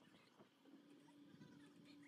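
Near silence: a faint steady hum, with a few faint clicks and rubs as the partly disassembled lens barrel is handled.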